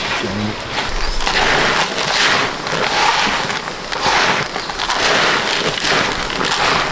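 Rough, crunchy scraping strokes repeating about once a second, as chicken feed is stirred and mixed in a container.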